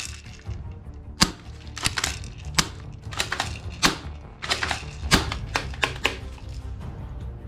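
Irregular sharp clicks and clacks of toy guns being worked, about a dozen in all, over quiet background music.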